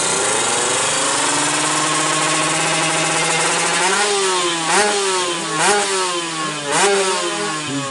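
Kawasaki Ninja two-stroke drag bike engine, bored up to 155cc, running steadily at a fast idle. In the second half it is blipped four times, about a second apart, each rev shooting up and dropping back.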